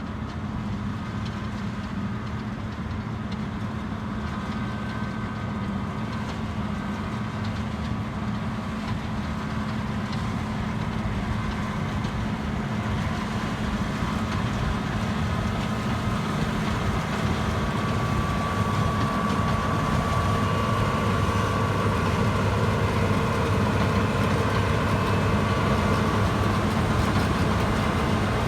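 John Deere 9400 combine running steadily while harvesting oats: a continuous drone of engine and threshing machinery that grows slowly louder, with a higher steady whine coming in about two-thirds of the way through.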